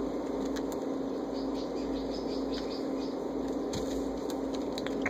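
Rustling and small scattered clicks from a hand and kitten fur brushing close against the phone's microphone, over a steady low hum.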